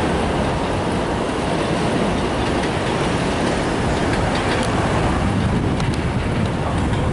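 An R160 subway train running along elevated track as it pulls away: a steady, noisy rumble of wheels on rails.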